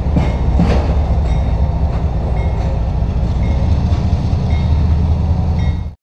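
Freight train's rear flatcars rolling past and away, a steady low rumble of steel wheels on rail with a few sharp clicks in the first second. The sound cuts off suddenly near the end.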